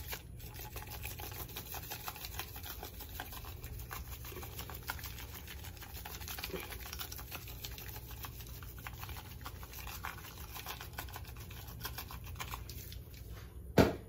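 Spice shaker of Greek seasoning being shaken: a continuous run of fine dry rattles and ticks as the seasoning is sprinkled out, with one sharp knock near the end.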